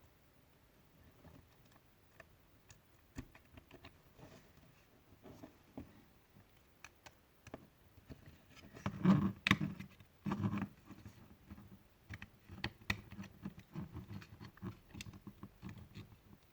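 Small plastic parts of a cordless hair clipper being handled and fitted into its housing: scattered light clicks and ticks, with two louder bumps about a second and a half apart a little past the middle.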